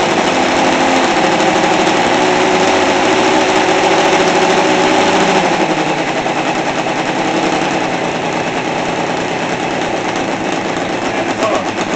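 Seidel 7-70 70cc seven-cylinder radial model glow engine running steadily with its propeller, just after starting. It gets a little quieter from about halfway through.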